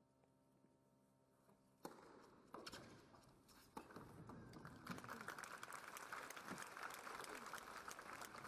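Tennis ball struck by racquets three times in a short rally, about a second apart, the last a volley at the net. Then the crowd applauds the point from about halfway through.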